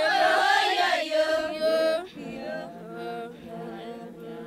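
Several voices singing held, overlapping notes, like a choir or chant. It is loud for about the first two seconds, then quieter.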